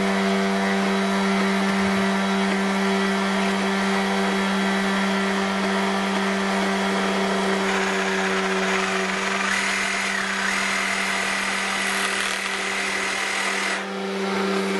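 An electric power tool's motor runs steadily with a strong hum. A cordless reciprocating saw cuts PEX tubing into short sap spiles, and a higher whine joins about halfway through and fades shortly before the end.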